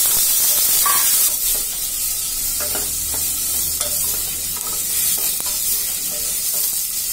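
Shallots and drumstick pieces sizzling in a little hot oil in a stainless steel pressure cooker, the sizzle loudest in the first second or so. A spatula scrapes and knocks against the pan now and then as they are stirred.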